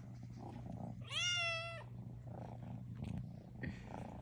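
Domestic cat purring steadily, with one high-pitched squeaky call about a second in that lasts under a second, the odd dolphin-like noise this cat makes.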